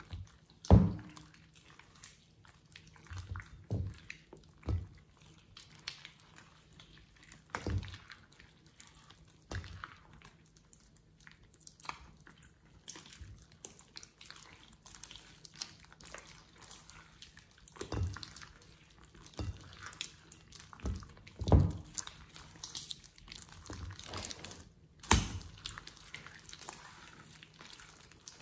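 Thick glittery slime being kneaded, squeezed and stretched by hand in a glass bowl, giving irregular wet squelches and sticky pops, with a few louder ones.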